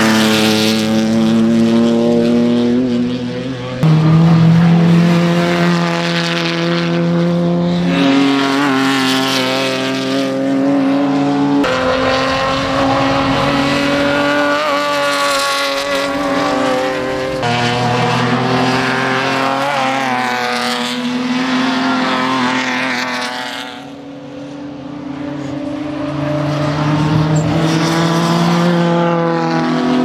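Race cars' engines at full throttle passing on a circuit, their note climbing and dropping through gear changes, heard as a string of separate clips with abrupt changes between them; the cars in view are Hyundai Genesis Coupe race cars with naturally aspirated 3.8-litre V6 engines. About three-quarters of the way through, one car's sound dies away before the next one comes up.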